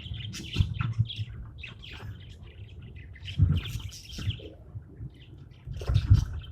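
Pet budgerigars chirping and chattering in quick, short notes. A few dull thumps come about half a second in, in the middle and near the end, and these are the loudest sounds.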